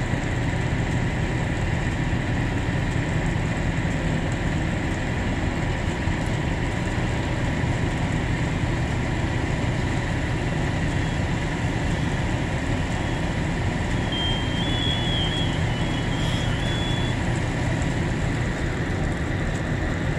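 Fire apparatus diesel engines idling, a steady low hum, with faint high-pitched tones for a few seconds midway.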